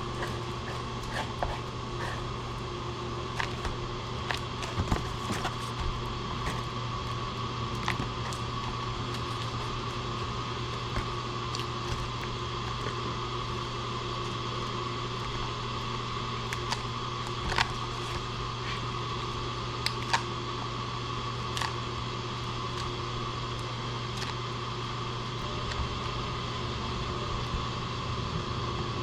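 Steady mechanical hum with a few fixed tones, like a running fan, with scattered light clicks and taps over it.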